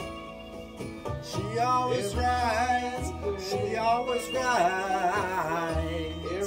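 A song playing: a singing voice holding wavering, sliding notes over an accompaniment with a steady low bass line.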